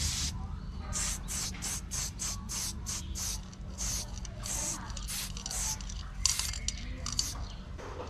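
Hand trigger spray bottle of water-thinned paint being pumped in quick hissing squirts, about two a second, each short with brief gaps between.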